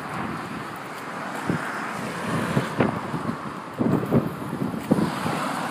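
Outdoor street noise of road traffic, with wind rumbling on the phone microphone and irregular bumps from the phone being carried.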